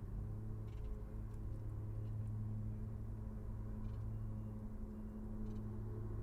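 Car engine running with a steady low hum, joined by a few faint, short high sounds.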